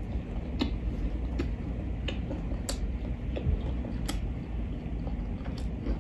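Close-miked chewing of a crispy fried chicken sandwich: scattered crunches and mouth clicks, about one a second, over a steady low hum.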